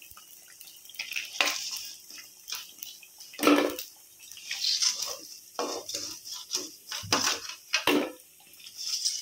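Crumb-coated bread pieces sizzling in hot oil in a kadai, while a perforated metal ladle knocks and scrapes against the pan several times as the fried pieces are lifted out.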